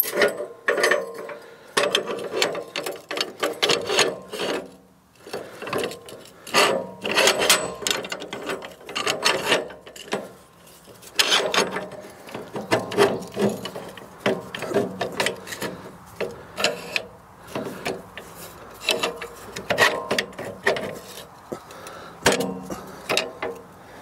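Log being adjusted by hand on a band sawmill bed: irregular bursts of metal clicking and ratcheting mixed with wood scraping and rubbing, with short pauses between.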